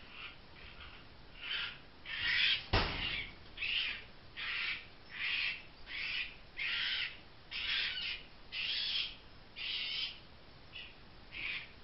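A fox cub's repeated high, harsh distress cries as it is handled, about one cry every three-quarters of a second, each under half a second long. A single sharp knock, the loudest sound, comes near three seconds in.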